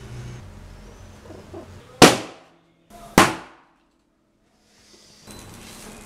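Two sharp pops about a second apart, each with a short ring-out: an inflated rubber balloon bursting as it is pricked with a needle.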